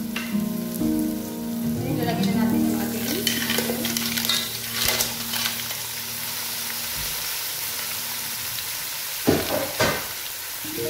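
Mussels and onions frying in hot oil in a pot, sizzling steadily as they are stirred with a wooden spoon. Two sharp knocks come near the end.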